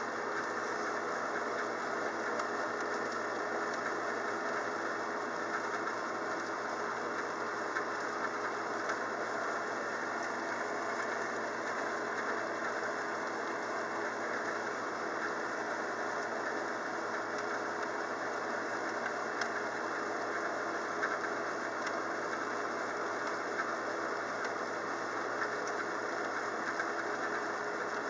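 Steady rain falling, an even hiss with occasional light ticks of drops.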